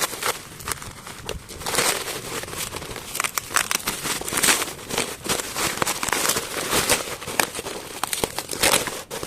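Parcel wrapping being crumpled and torn open by hand: a dense, irregular rustle full of short sharp crackles.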